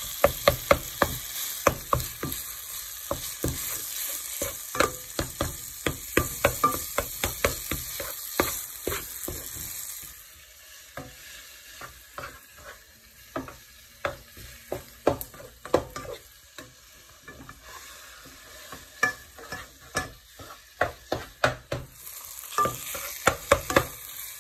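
Ground chicken mince frying in a nonstick pan with onions and tomato. It sizzles loudly while a spoon clicks and scrapes against the pan, stirring and breaking the mince up. About ten seconds in, the sizzle drops to a faint hiss under a glass lid and scattered clinks go on; the loud sizzle returns near the end.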